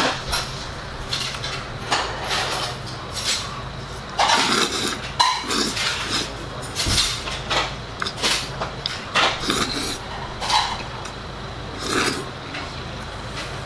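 A person slurping and eating soupy noodles from a bowl with chopsticks: repeated short slurps, each a few tenths of a second long, with chewing between them.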